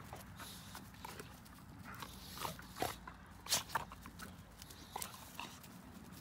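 Two puppies play-fighting on grass, with a scattering of short, sharp yips and scuffling sounds at irregular moments; the loudest comes a little past three and a half seconds in.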